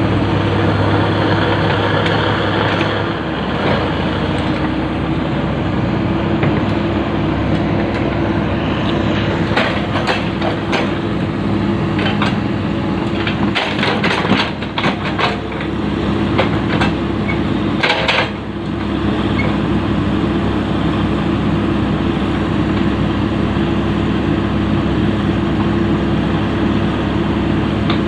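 Komatsu PC200 excavator's diesel engine running steadily, with a few sharp knocks about ten, fourteen and eighteen seconds in.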